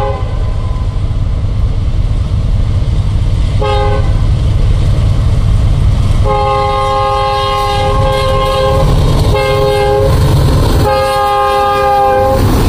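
Union Pacific diesel freight locomotives approaching and passing, their engines a heavy low rumble, while the lead unit's multi-chime air horn sounds in blasts: a short one about four seconds in, a long blast, another short one, and a long blast near the end.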